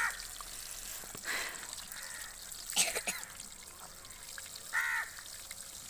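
Batter-coated fish deep-frying in hot oil in an iron kadai: a steady sizzle, with a few short sharper sounds cutting in, the loudest about three seconds in.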